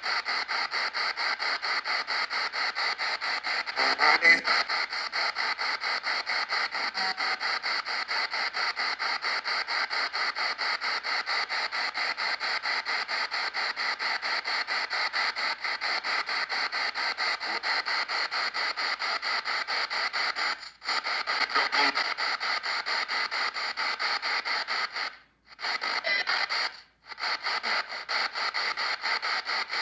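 P-SB7 spirit box radio sweeping at 150 ms, heard through an APF-D audio processor as choppy static and station fragments at about six or seven pulses a second. A louder burst comes about four seconds in. Near the end the sound cuts out briefly a few times as the noise gate kicks in.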